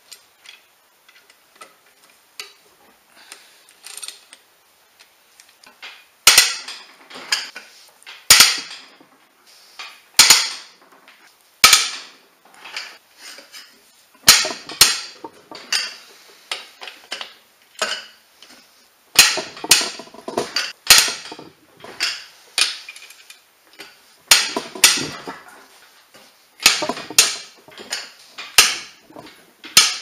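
Ratchet wrench working the main bearing cap bolts on a Ford Duratec 2.3 four-cylinder block during teardown: light ratchet ticking, then from about six seconds in a dozen or more sharp metallic cracks and clanks every second or two.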